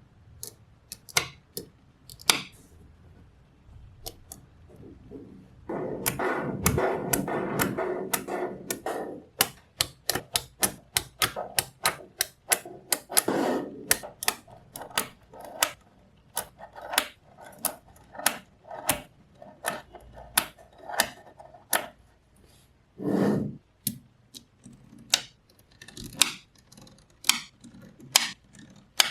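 Small magnetic balls clicking and snapping together one after another, with a longer stretch of many balls rattling together about six seconds in and a short rattle later on.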